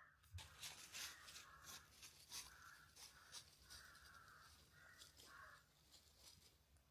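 Faint series of harsh bird calls, about six in quick succession, with some light clicking.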